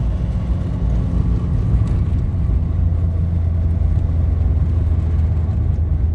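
Toyota AE86's engine running steadily under way, heard from inside the cabin as a low, even drone with road noise.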